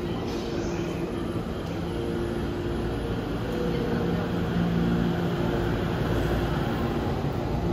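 E231 series electric commuter train at a station platform: a steady hum of its running equipment with a few held low tones, no horn blast and no rising motor whine.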